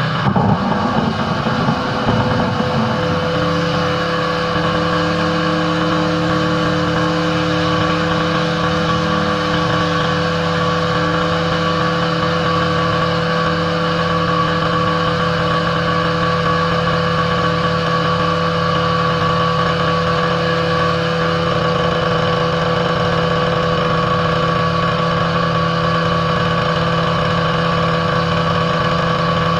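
Pressure washer's petrol engine running steadily under load, with the hiss of the high-pressure water spray over it. It is rougher and a little louder for the first two seconds or so, then holds an even drone.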